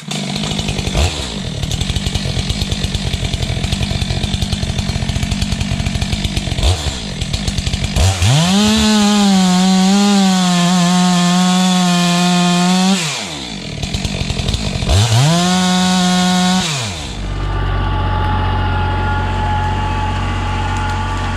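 STIHL MS 462 two-stroke chainsaw idling with a rapid, uneven firing, then revving up to full throttle and holding there for about five seconds, dropping back, and revving up a second time more briefly. A steadier, lower engine sound follows near the end.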